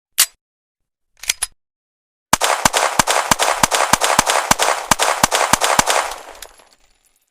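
Pistol gunfire sound effect: a single shot, then a short burst, then a rapid string of about four shots a second that dies away near the end.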